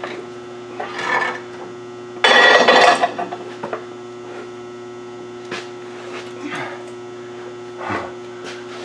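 Steady electrical hum from the shop's lights, with scattered knocks and scrapes of metal suspension parts being handled as the steering knuckle is worked onto the upper control arm's ball joint. The loudest event is a scraping clatter lasting under a second, a little over two seconds in.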